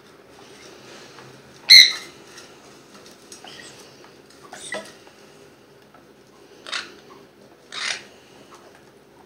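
Young parrots giving four short, harsh squawks spread across a few seconds, the first one about two seconds in the loudest.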